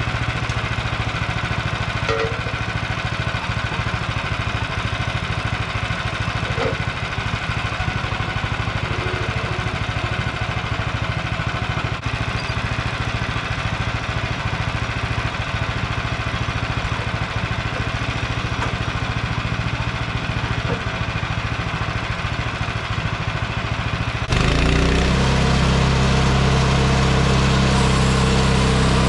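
Small gasoline engine of a Frontier OS23 portable bandsaw mill running steadily. About 24 seconds in the sound changes abruptly and grows louder, with a deeper, fuller engine note.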